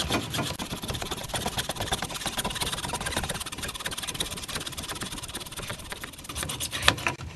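Hacksaw cutting through 1-inch PVC pipe in quick back-and-forth strokes, with a couple of louder knocks near the end.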